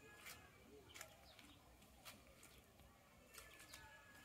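Near silence, with faint, scattered short bird chirps and light clicks about once a second.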